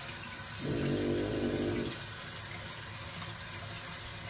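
Tap water running steadily into a bathroom sink. About half a second in, a short pitched hum rises over it for just over a second, the loudest sound here.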